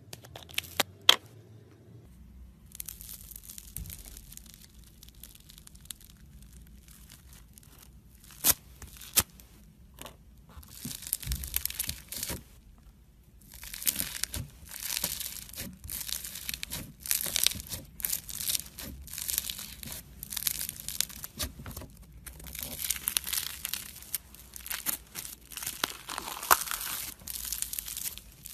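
Foam-bead slime (floam) being poked, pressed and squished by fingers, crackling and crinkling in bursts that grow denser in the second half. A couple of sharp clicks about a second in as the plastic jar's lid comes off.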